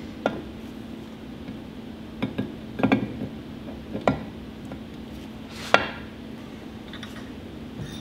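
Metal clinks and knocks as the eccentric shaft of a Sachs KM24 Wankel rotary engine is handled and slid into its cast side housing: scattered taps, a cluster about three seconds in, and one sharper knock just before six seconds, over a steady low hum.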